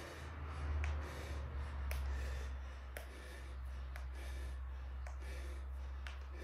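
A man breathing hard through an exercise set of flutter kicks, with a sharp faint click about once a second over a steady low hum.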